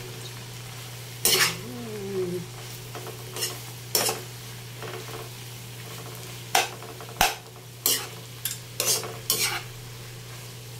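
A steel spatula stirring and turning water spinach with ground pork in a hot non-stick wok, the greens sizzling, with irregular sharp scrapes and knocks of the spatula against the pan.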